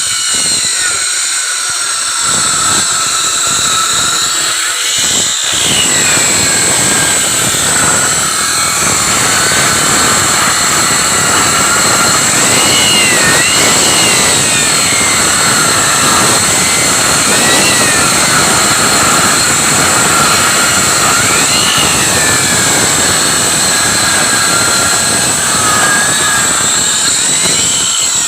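A power tool's motor whining at high speed as it cuts wood. Its pitch dips and recovers several times as the cut loads it.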